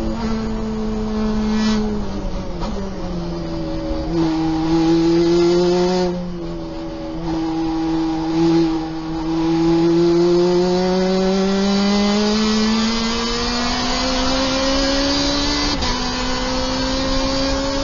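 Lotus race car engine heard from inside the cockpit. Its pitch drops as the car brakes and shifts down in the first few seconds, holds low through a slow corner, then climbs steadily under full throttle, with an upshift about 16 seconds in.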